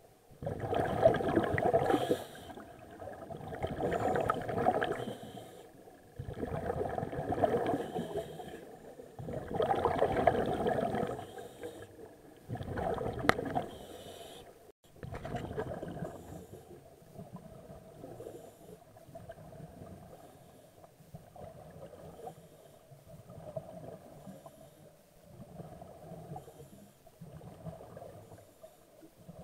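Scuba regulator exhaust bubbles: a diver breathing out underwater in five loud bubbling bursts about three seconds apart, then fainter, shorter bubbling for the rest of the time.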